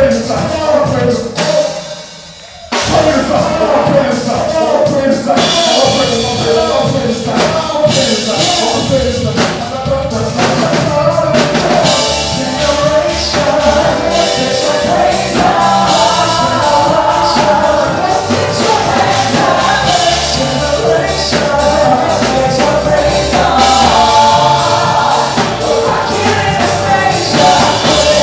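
Music with singing and a drum kit, with a short break for under a second about two seconds in before it starts again.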